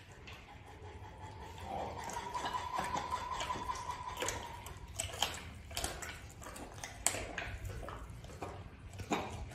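White tiger chewing raw meat, with sharp crunching clicks from its jaws, several of them in the second half. A steady high tone sounds over the first few seconds.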